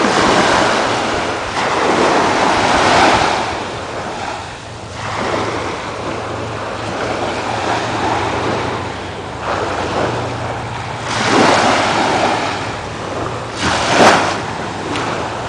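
Small ocean waves breaking and washing up on a sandy shore, the surf noise rising and falling in several swells, with a sharp surge near the end.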